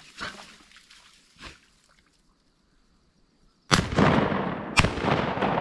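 Two shotgun shots about a second apart, starting about three and a half seconds in, each followed by a long echoing tail.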